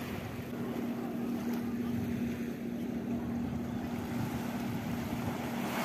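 Steady wind noise on the microphone over surf, with a low steady hum underneath.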